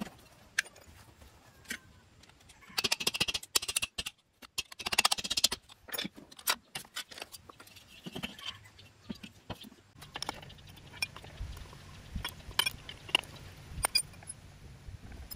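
Metal Lambretta engine parts being handled: scattered clinks and taps, with two short bursts of rapid rattling about three and five seconds in.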